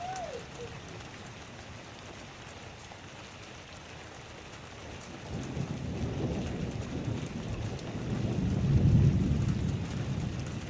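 Steady heavy rain, with a low rumble of thunder building from about halfway through, loudest near the end and then easing off.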